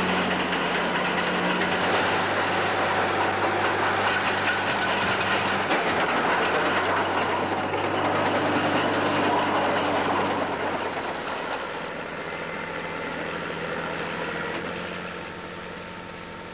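Tracked lifeboat launching tractor running and clattering as it tows the lifeboat on its carriage across the beach, growing fainter in the last few seconds.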